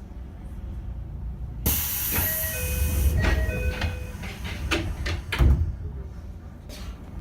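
Sliding doors of a Tokyo Metro 7000-series train working: a sudden loud hiss of air about a second and a half in, then a run of clicks and short tones, and a heavy thud from the door gear about five and a half seconds in.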